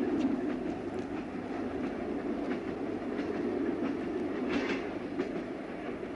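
A moving train heard from inside the carriage: a steady low rumble with the wheels clicking over the rail joints at irregular intervals.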